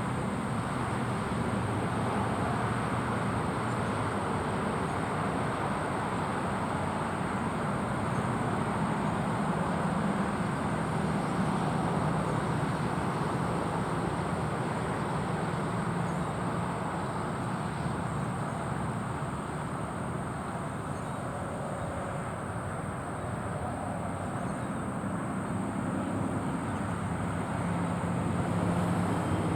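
Car on the move: a steady mix of engine and tyre road noise with a low hum that rises and falls slightly.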